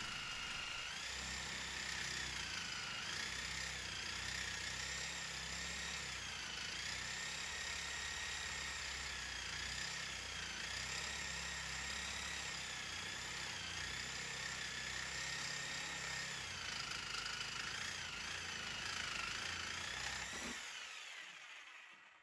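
Reciprocating saw fitted with a carbide-tipped Diablo metal-cutting blade, cutting through old 2-inch cast iron pipe. The motor whine dips and recovers in pitch as the blade bites under load, and the saw winds down and stops near the end.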